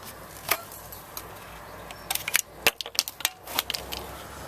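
Sharp clicks and knocks of hard plastic and metal parts being handled inside a cut-open hermetic refrigeration compressor: a couple of single clicks in the first second, then a quick irregular cluster from about two seconds in.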